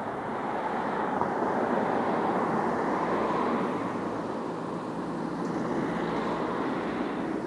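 Road traffic going by: car tyre and engine noise swelling to a peak about two to three seconds in, fading, then rising again at about six seconds as another car passes close.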